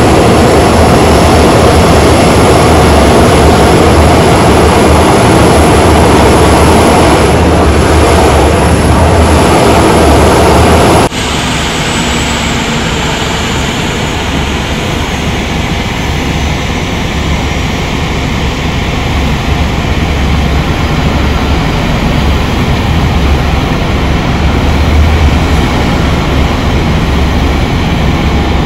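Aircraft taxiing: loud, steady engine noise with a thin high whine. About eleven seconds in it cuts off abruptly to a slightly quieter engine noise.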